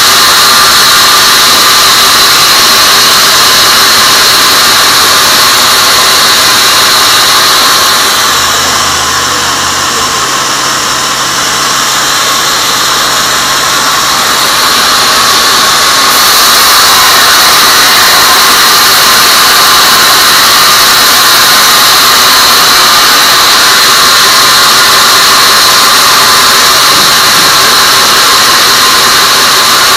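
Band sawmill running with its blade cutting lengthwise through a teak log: a loud, steady high whine over a hiss of sawing. It eases off for several seconds about a third of the way in, then comes back up to full level.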